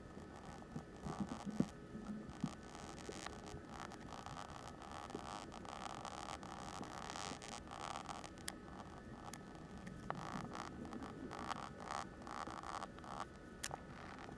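Oil pastel scratching over a black-painted MDF board in quick shading strokes, sped up 25 times so the strokes run together into a rapid, machine-gun-like rattle.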